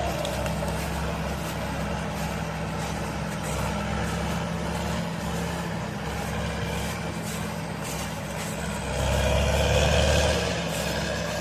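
Diesel engine of a Caterpillar machine running steadily, swelling louder for a second or two about nine seconds in.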